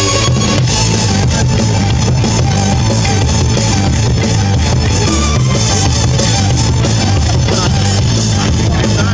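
Live rock band playing electric guitars and drum kit through a PA, with a steady beat and heavy bass.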